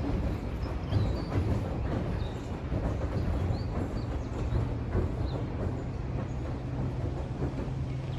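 A train running along the track: a low rumble with irregular knocks and clanks, and a steady low hum joining about two-thirds of the way through.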